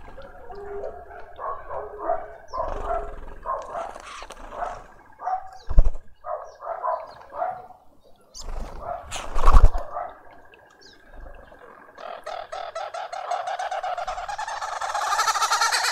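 Garden birds calling at a feeder, with a busy run of short chattering calls, broken by two loud thumps about six and nine seconds in. From about twelve seconds a long, very fast trill sets in and grows louder: the rattling trill of a crested barbet.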